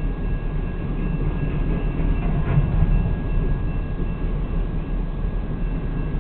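BNSF freight train cars rolling past a grade crossing, a steady low rumble of wheels on rail, heard from inside a stopped car. A slightly louder clank comes about two and a half seconds in.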